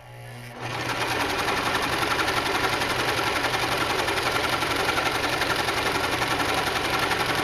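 Janome HD1000 sewing machine starting up with a brief motor hum, then running steadily at speed in a fast, even stitching rhythm.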